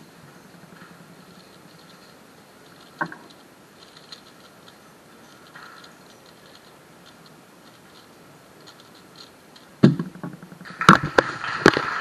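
Faint, rapid clicking of a Valk 3 speedcube being turned through a solve, with one sharper click about three seconds in. About ten seconds in comes a sharp slap as the solve is stopped on the Stackmat timer, followed by several loud knocks and handling clatter.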